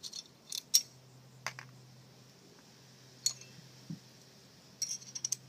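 Scattered sharp clicks and taps of small plastic and metal parts of a windshield-setting tool's mount being handled as its set screws are taken out. The loudest click comes under a second in, and a quick run of clicks comes near the end.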